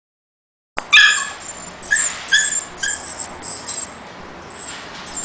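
A small dog giving a run of short, high-pitched yips and whines, starting about a second in, the loudest in the first two seconds, then fainter.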